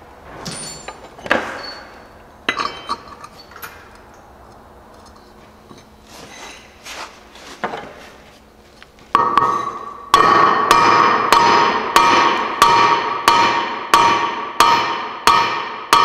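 Hammer blows on a bolt threaded into a Hustler Z mower deck spindle shaft, driving the shaft down out of its pulley. A few light tool clinks come first; then, from about ten seconds in, steady blows follow at about two a second, each ringing out metallically.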